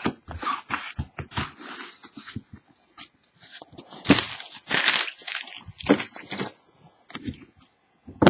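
Irregular rustling, scraping and light tapping from hands handling trading cards and their packaging.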